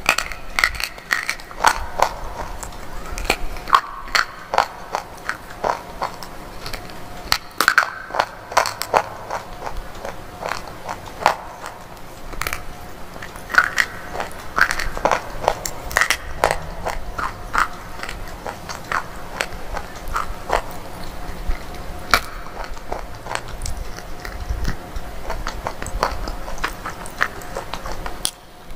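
Close-miked biting and chewing of brittle slate bar pieces: an irregular run of sharp, crisp cracks and crackles.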